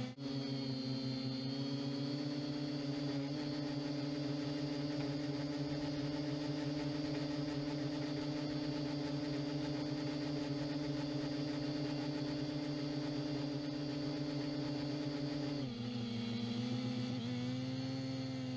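MJX Bugs 2W quadcopter's brushless motors and propellers humming steadily as it climbs, heard up close from the camera strapped to it. The pitch drops suddenly near the end and comes back up a second or so later.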